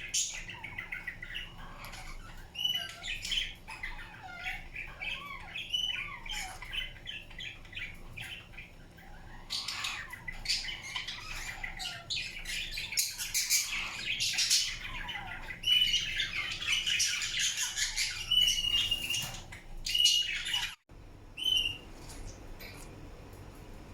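Indian ringneck parakeet chattering, with rapid chirps, short squawky calls and gliding notes mixed with quick clicks. The calling is busiest in the second half, then breaks off abruptly near the end.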